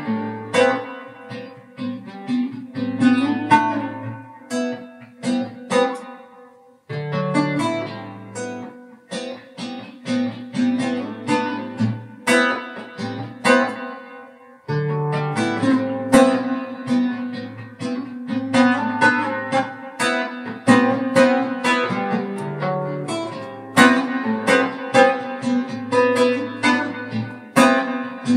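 Solo guitar playing an original instrumental piece: plucked notes ringing over a low bass line. The sound dies down twice, about seven seconds in and again near fifteen seconds, and each time a new phrase starts suddenly.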